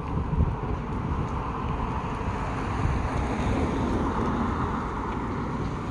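Wind buffeting the microphone over the steady rush of cars driving by on the road, with one car passing close in the second half.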